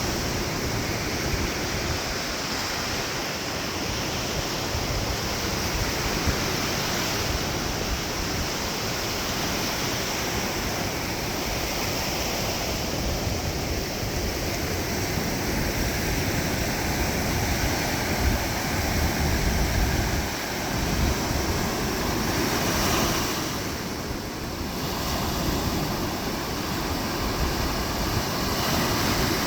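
Atlantic surf breaking and washing up the beach: a steady, continuous rushing with slow swells in loudness, and some wind rumble on the microphone.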